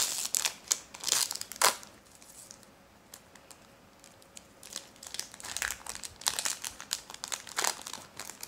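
Foil wrapper of a Topps baseball card pack crinkling as it is torn open and peeled back, in loud bursts for the first couple of seconds, then quieter crinkling in the second half as the cards are slid out of it.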